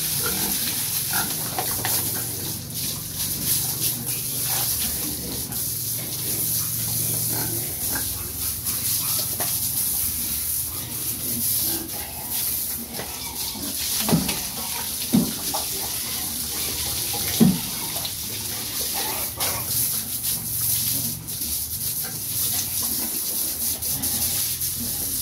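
Three-month-old fattening pigs grunting in their pen while water from a hose sprays over them. Three short, louder noises stand out about halfway through.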